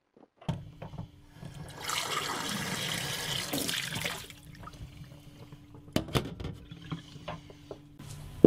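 Kitchen tap running into a stainless steel sink while a mug is rinsed under it, for about two seconds. A couple of sharp knocks follow later, over a steady low hum.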